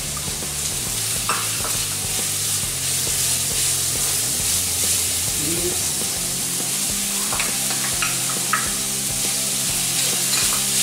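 Finely chopped vegetables sizzling in hot oil in a steel wok on a high flame as they are tipped in and stirred. A few light clicks of bowl and spatula against the pan come about a second in and again around seven to eight seconds in.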